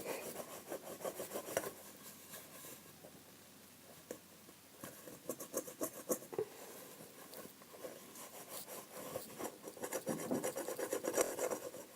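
A dirty bowl being scrubbed by hand: rapid rubbing, scratchy strokes that come in spells, strongest at the start, midway and near the end.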